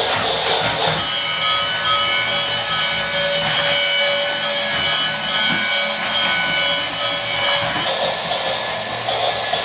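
Battery-operated toy steam locomotive running across a wooden play table, its motor whirring and wheels rubbing on the wood. From about a second in until near the end it plays a simple beeping electronic tune, with a hissing steam sound effect before and after.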